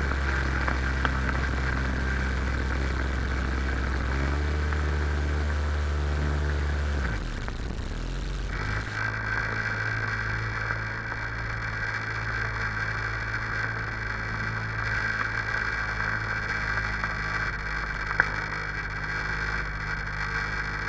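Sea-Doo XP jet ski's 787 cc two-stroke twin engine running under way, a steady low engine note that shifts to a different pitch about seven seconds in. There is a single sharp click near the end.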